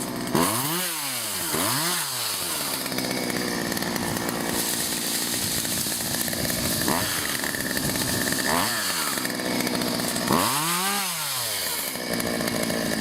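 Gasoline chainsaw running, revved up and let back down several times in quick rises and falls, with a longer stretch of steady running between.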